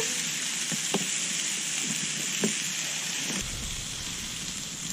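Steak sizzling over a campfire, a steady hiss with a few sharp pops. A low rumble joins about three seconds in.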